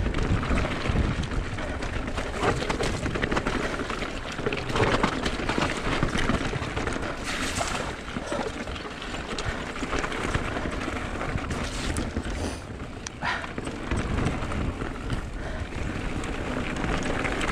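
Mountain bike descending a rough dirt trail at speed: a steady rush of wind on the microphone and the rolling noise of knobbly Maxxis Minion tyres, with frequent knocks and rattles from the bike over the bumps.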